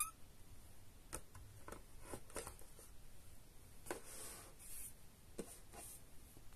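Faint handling sounds of a glass perfume bottle being set back into the cardboard tray of its gift box: a sharp click at the start, then a few soft taps and rubs.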